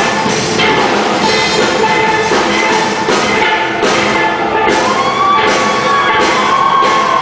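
Steel band playing live: many steel pans ringing out a tune over a drum kit, loud and continuous.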